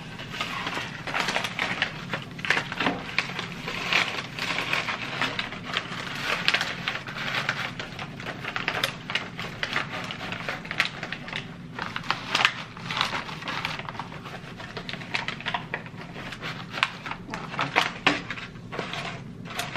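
Crinkle-cut paper shred and a glossy foil pouch rustling and crackling as the shred is stuffed into the pouch by hand, a steady run of many small crackles.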